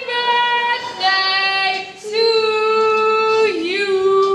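A woman singing a few long, held notes into a microphone without accompaniment. The notes are separated by short breaks, and the pitch dips briefly near the end.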